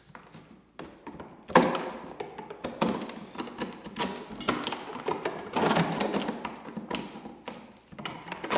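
Crooked knife cutting and shaving along the edge of spruce bark, an uneven series of rasping strokes with small ticks between them.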